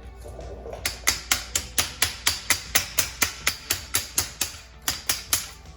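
Rapid ratcheting clicks, about four a second, as a part of the umbrella frame is tightened, with a short pause near the end.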